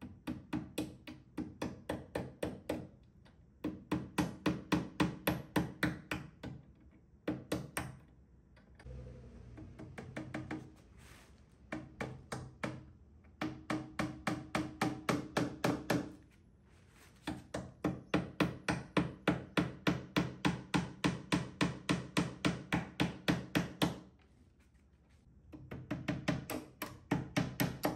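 Hammer tapping small pin nails through brass corner brackets into a wooden cabinet, in quick runs of taps about four a second with short pauses between runs.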